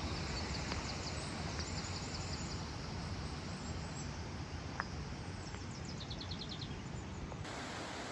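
Outdoor ambience with a steady low rumbling noise and a bird calling in quick runs of high chirps, twice. Near the end it switches to the even rush of water spilling over a small stone weir.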